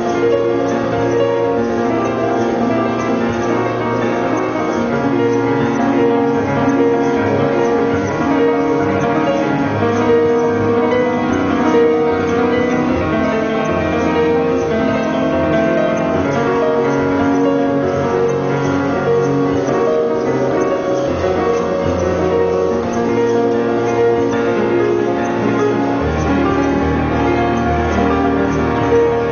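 Instrumental music led by piano, with held notes and chords at a steady level.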